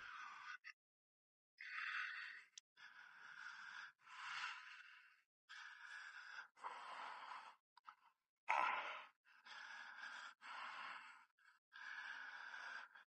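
A man's heavy, laboured breathing: a string of hard breaths and exhales, each broken off by a short silence, from the strain of lifting and turning a 125 lb battery pack.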